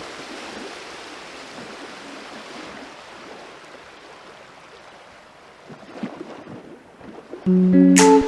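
Sea waves washing on a beach, with wind on the microphone. About seven and a half seconds in, loud strummed guitar music starts.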